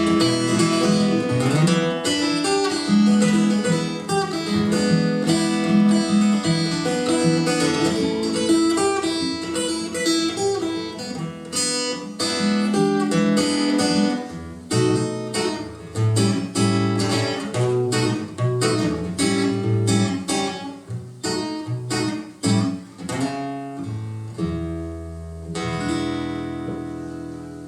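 Acoustic guitar playing the closing bars of a blues song: strummed chords, then single picked notes from about halfway, ending on a chord left to ring out and fade.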